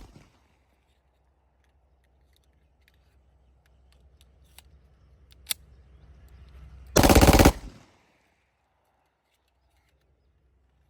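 .30 bore (7.62×25 mm) ten-shot pistol firing one short automatic burst about seven seconds in, lasting around half a second. Before it come a few faint clicks.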